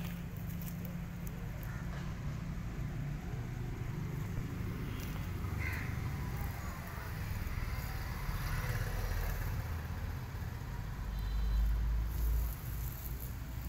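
A steady low rumble, which swells louder a little before the end.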